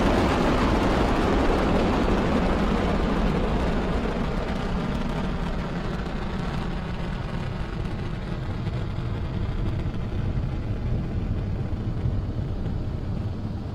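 Falcon 9 rocket's nine Merlin first-stage engines during climb-out just after liftoff: a loud, deep rumble that slowly fades as the rocket rises away, its higher hiss dying out first.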